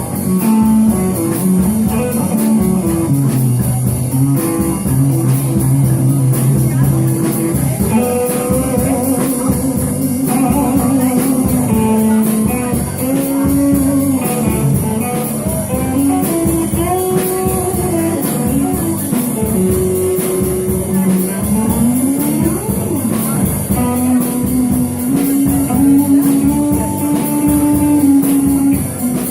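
Music: a guitar-led blues-rock song with singing, played continuously.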